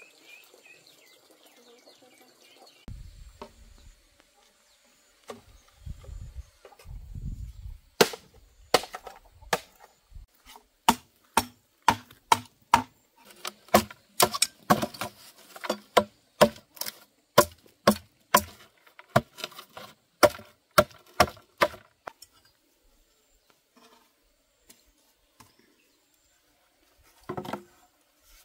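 Rapid chopping strikes on wood, about two a second for some fourteen seconds, then one more strike near the end.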